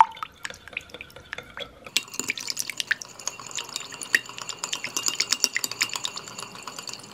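A metal spoon stirring a thin alcohol and aloe vera gel mixture in a glass measuring cup. It makes rapid clinks against the glass with wet swishing, and the glass starts ringing from about two seconds in.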